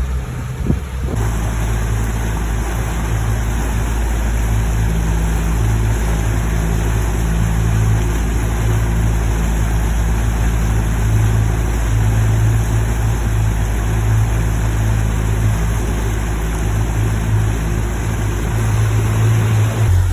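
Mercury 90 HP outboard running steadily, a loud low rumble and hum that resonates through the pontoon boat's structure, stepping up about a second in. The owner takes it for the boat's resonant frequency matching the engine's and amplifying the noise.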